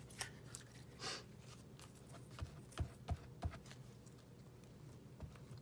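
A few light taps and a soft paper rustle as a glue bottle and a paper piece are handled to glue it onto a book page.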